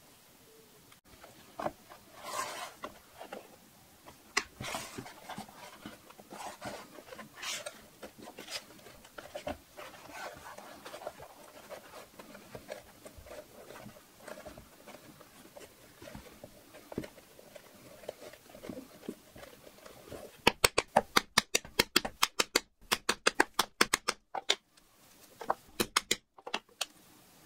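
Leather and thread rustling and scratching as a stitched leather pouch is handled and folded. Then a fast run of sharp knocks, about five a second and the loudest part, with a few more after a short pause: strikes on a hollow punch cutting small leather discs against a plastic cutting board.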